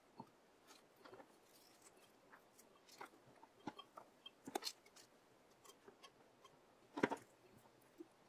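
Faint, scattered light clicks and taps of sliced red onion, garlic and pepper pieces being dropped and pressed by hand into a glass canning jar, with a louder cluster about seven seconds in.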